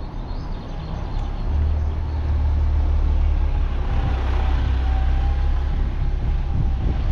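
A MAN city bus drives past close by with its diesel engine running, giving a low, steady rumble.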